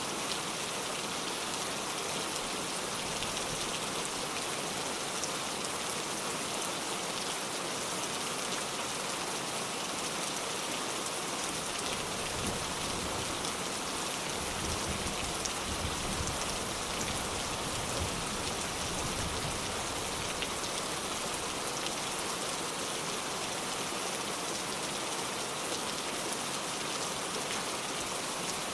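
Steady heavy rain, a dense even hiss of drops on surfaces. From about twelve to twenty seconds in, a low rumble of distant thunder rolls underneath.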